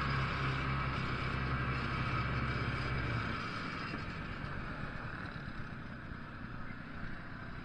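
1976 Ski-Doo Olympique 300M's single-cylinder two-stroke engine running as the snowmobile rides along. About three seconds in it eases off and the sled slows, and the sound grows gradually quieter.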